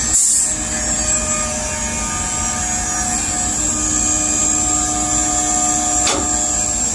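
Tugboat machinery droning steadily with several fixed hum tones. There is a brief high hiss at the start and a click about six seconds in.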